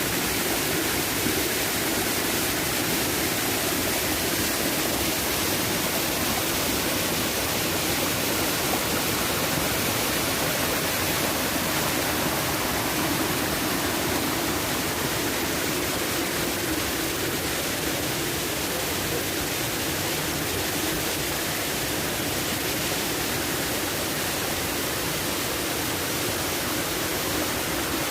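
Waterfall: a steady rush of falling water, even and unbroken throughout.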